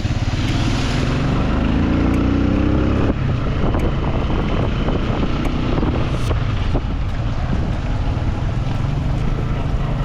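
A vehicle engine runs while driving, its pitch rising as it accelerates for about the first three seconds. A steady rushing noise of wind on the microphone lies over it.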